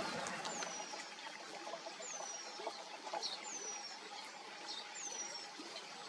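Eurasian penduline tit calling: four thin, high whistles, each sliding downward, evenly spaced about a second and a half apart, with a couple of short high chirps between them.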